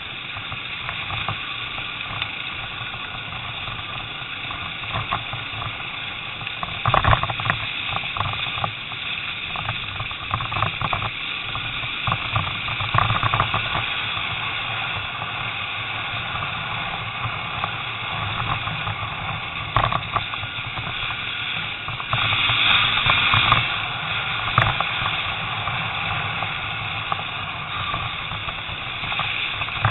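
Off-road motorcycle engine running as the bike rides along a rough, muddy dirt track, with hiss from the wind and frequent knocks from bumps in the track. The engine gets louder for a couple of seconds about two-thirds of the way in.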